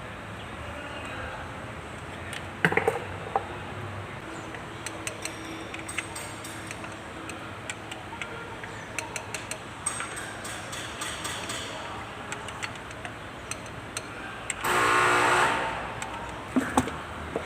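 Scattered clinks and knocks of metal tools and engine parts being handled during work on a diesel engine, with one loud burst lasting about a second near the end.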